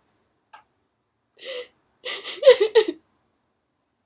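A woman crying happy tears: a short whimpering breath about one and a half seconds in, then a quick run of gasping, voiced sobs around the two-to-three-second mark.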